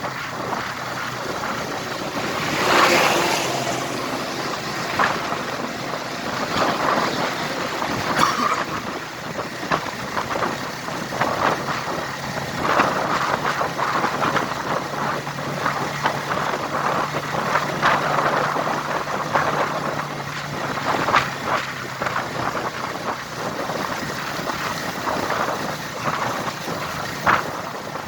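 A vehicle running on the road: a steady low engine hum under a rushing noise of wind on the microphone.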